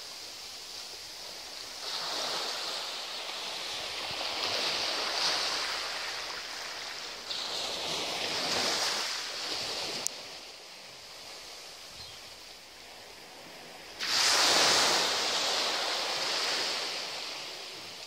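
Small sea waves breaking and washing up a sandy beach: three rushes of surf that each swell and fade away, the last and loudest about fourteen seconds in.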